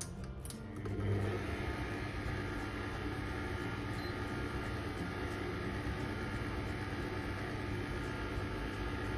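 Electric stand mixer motor running steadily at low speed (speed 2), turning a dough hook through flour and water, after a few clicks as it is switched on. A brief faint beep about four seconds in as the kitchen timer is started.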